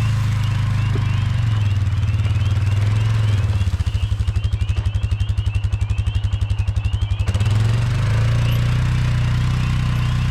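A motor runs steadily with a low hum. For a few seconds in the middle it turns into a rapid, even pulsing of about ten beats a second.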